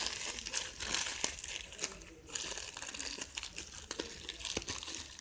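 Light-blue plastic mailer bag crinkling and crackling as it is pulled open by hand, in dense irregular rustles with a short pause about two seconds in.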